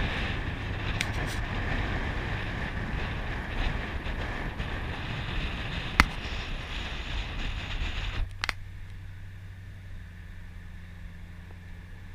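Wind and road rush in a moving car with the windows down, with a sharp click about six seconds in. After a knock a little past eight seconds the rush drops away, leaving the low steady hum of the engine.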